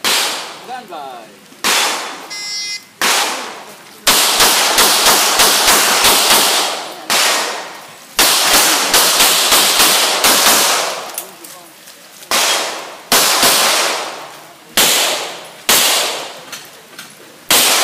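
Handgun fired in a practical shooting stage: sharp cracks, each trailing off in echo, some spaced a second or so apart and others in fast runs of five or six shots within about two seconds.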